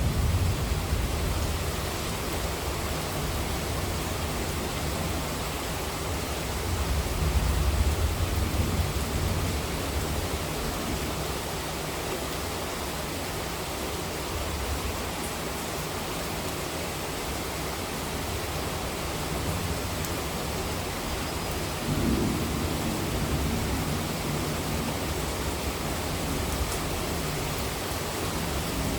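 Heavy, steady monsoon rain hissing, with deep low thunder rumbles swelling about a quarter of the way in and again about three-quarters of the way through.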